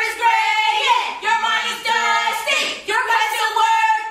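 Cheerleaders chanting: women's voices in a rhythmic, sing-song cheer.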